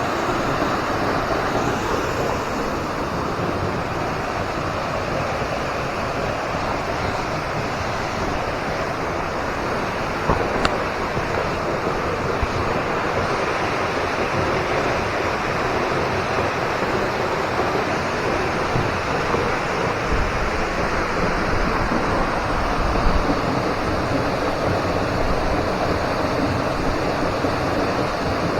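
Hemlock Falls waterfall pouring: a steady rush of falling water.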